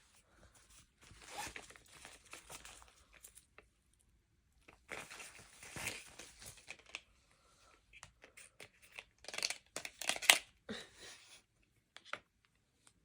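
Packaging being torn open and crinkled by hand, in three spells of tearing and rustling with pauses between them, loudest about ten seconds in, ending with a short click.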